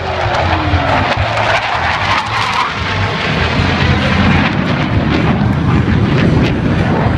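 Jet engines of US Navy Blue Angels F/A-18 Hornets flying past: a loud, steady rushing jet noise, with a falling whine in the first second as a jet goes by.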